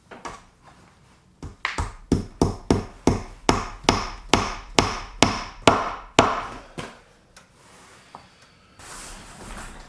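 A hammer driving nails into wooden boards: a steady run of about fourteen quick blows, a little under three a second, each ringing briefly, stopping a couple of seconds before the end.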